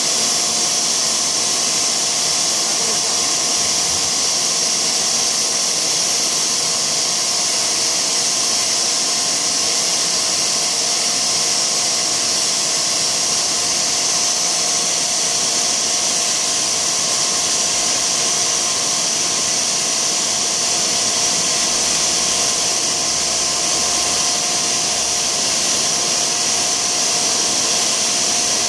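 Large extrusion blow moulding machine running: a steady, unbroken whirring hiss with a faint steady tone underneath.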